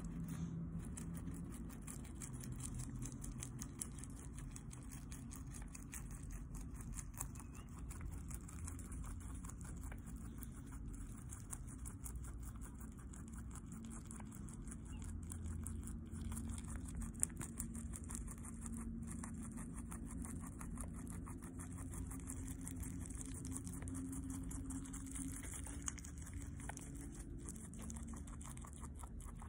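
Guinea pig chewing a stalk of flat-leaf parsley close up: fast, continuous crunching of small bites.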